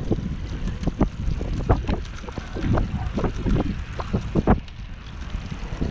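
Wind buffeting the microphone of a camera mounted on a moving homemade carbon fiber recumbent bicycle, over a low rumble from the ride, with a run of sharp knocks and rattles that eases off near the end.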